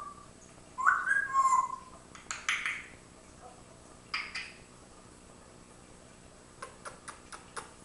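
Pet parrot vocalizing: loud whistled calls gliding in pitch about a second in, then a few noisier calls, and a quick run of sharp clicks near the end.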